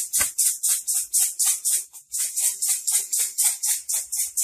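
A lidded sound-box bottle with small loose contents shaken back and forth, rattling about five times a second, with a short break about two seconds in.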